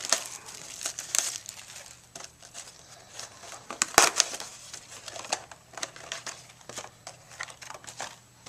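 Plastic wrapping crinkling and tearing in irregular crackles as a sealed box of trading cards is opened, with one sharp click about four seconds in.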